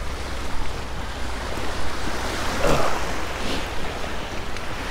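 Small waves washing onto a shell-and-gravel shoreline, with a steady wind rumble on the microphone.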